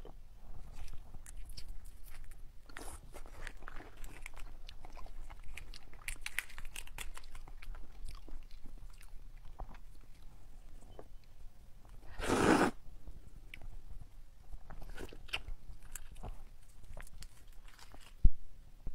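Crackling and snapping of a large red prawn's shell as it is broken apart and peeled by gloved hands, mixed with crunchy biting and chewing. There is a louder rushing burst about twelve seconds in.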